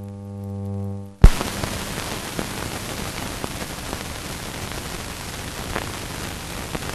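Steady hiss and crackle of an old optical film soundtrack with scattered clicks, starting with a sharp pop about a second in. Before the pop, a steady low hum.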